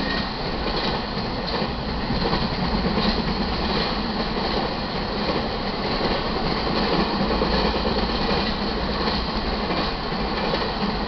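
Intermodal freight cars loaded with highway trailers rolling past: a steady rumble of steel wheels on rail, with a light irregular clatter.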